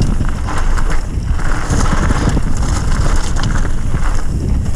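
Wind rushing over a helmet camera's microphone, mixed with the rumble of mountain-bike tyres rolling fast over a loose gravel trail and a few clicks of stones and bike rattle.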